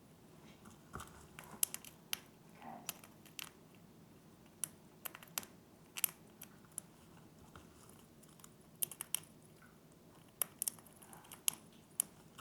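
Grey-breasted parakeets (conures) picking at treats and moving about the carrier: irregular sharp clicks and small crunches from their beaks and claws, a couple of dozen over the stretch, with no steady rhythm.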